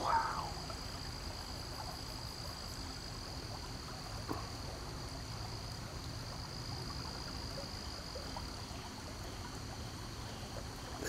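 Steady high-pitched drone of insects from the creekside woods, holding one pitch and dimming near the end, over a low background rumble.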